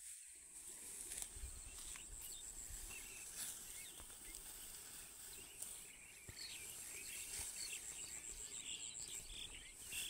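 Faint outdoor field ambience: insects chirring steadily in a high pitch, with a few soft, short clicks or rustles.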